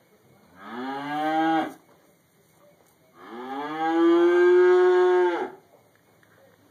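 A cow mooing twice: a short moo of about a second, then a longer, louder moo of about two seconds. Each rises in pitch at the start and then holds steady.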